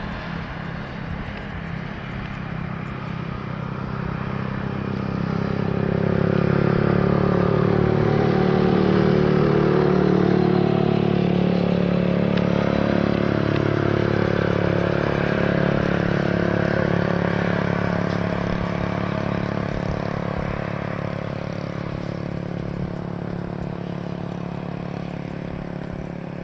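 Aircraft engines running as the plane passes. The sound swells to its loudest about ten seconds in, with sweeping, shifting tones, then slowly fades.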